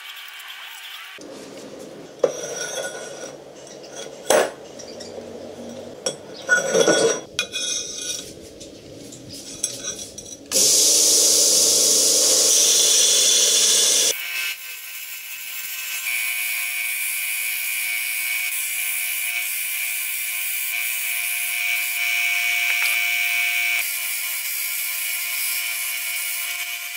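A steel scriber scratching and clicking on a steel plate, then a few seconds of loud, harsh grinding. After that a belt grinder runs steadily while the edge of a round steel disc is ground against its belt.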